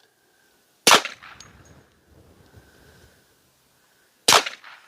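Two suppressed pistol shots from a 10 mm Hi-Point fitted with a Hybrid 46 silencer, about three and a half seconds apart, each a sharp crack with a short fading tail.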